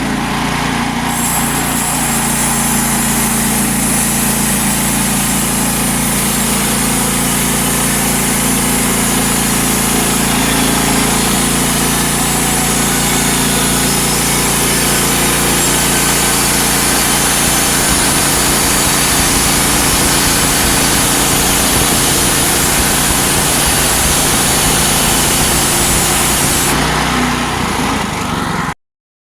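Woodland Mills HM122 bandsaw mill running steadily under its gas engine, with a high hiss from about a second in until near the end as the band blade saws through a log. The sound cuts off abruptly near the end.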